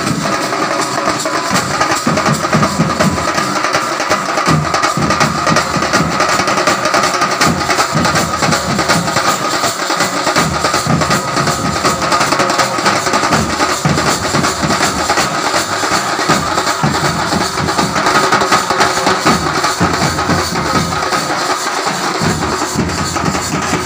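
Street percussion troupe beating snare drums and large steel-shelled bass drums together in a loud, dense, unbroken rhythm.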